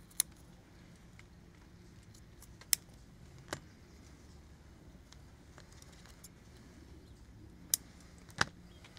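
Scissors snipping away excess woven vinyl-mesh floor fabric at a corner, and the fabric being handled: about five separate sharp clicks spread over the few seconds, with a faint steady background.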